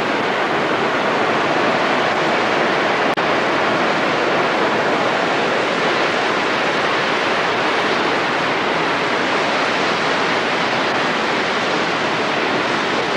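Floodwater of a swollen creek rushing steadily and loudly.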